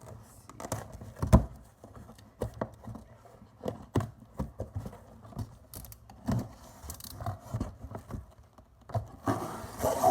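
Cardboard shipping box being opened and unpacked by hand: scattered knocks, taps and scrapes, one sharp knock about a second in, and a burst of rustling near the end.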